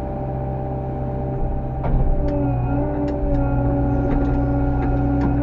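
Bobcat E85 compact excavator's diesel engine running under load as the machine works to get out of soft mud, with a steady hydraulic whine that joins about two seconds in. Several sharp clanks sound over it from then on.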